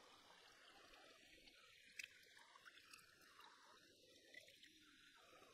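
Very faint stream water with small splashes and a few soft ticks as squid flesh is rinsed and rubbed by hand in the water.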